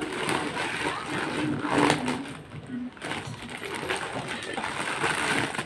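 Plastic courier mailer bag crinkling and tearing as it is pulled open by hand, in uneven bursts with a louder rip about two seconds in.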